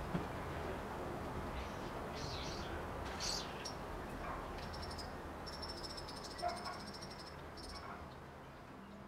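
Steady outdoor evening background noise with a few short high chirps and a rapid high-pitched trill lasting about two seconds from about five and a half seconds in. The whole slowly fades out near the end.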